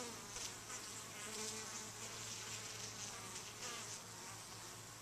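Italian honeybees buzzing at the hive entrance as foragers fly in and out, a faint steady hum.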